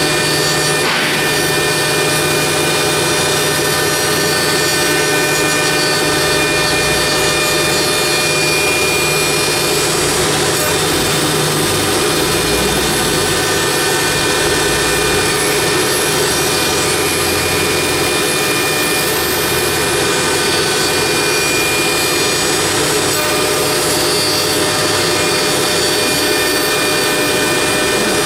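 CNC router spindle running at speed, its bit milling a wooden column turned slowly on a rotary-axis chuck: a steady, unbroken whine over continuous wood-cutting noise.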